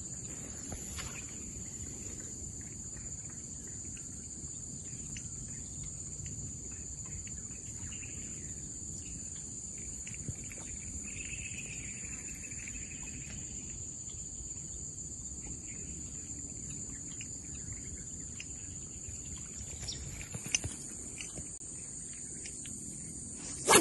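Insects, crickets or cicadas, keeping up a steady high-pitched drone over a low background rumble. A wavering call, likely a bird, comes in for a couple of seconds around the middle, with a few faint clicks here and there.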